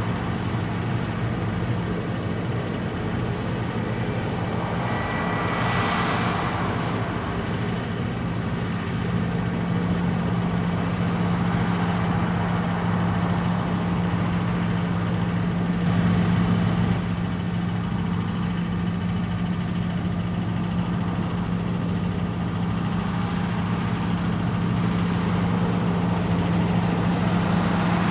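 Engine of heavy harvest machinery running steadily with a deep, even hum, briefly swelling about six seconds in and again around sixteen seconds in.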